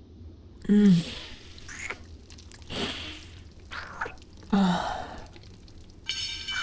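Close-miked kissing sounds from a woman's mouth: about five wet lip smacks, two of them with a short voiced hum. A high ringing tone comes in near the end.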